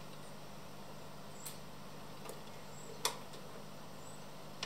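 Braun PS 600 turntable playing a vinyl record where no music sounds. Sharp surface clicks come at roughly even spacing, about one every one and a half seconds, the loudest about three seconds in, over a faint steady low hum.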